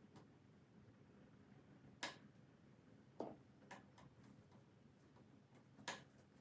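Near silence, broken by a few short, sharp clicks and taps: one about two seconds in, one a little after three seconds with a couple of lighter ticks following, and one near the end.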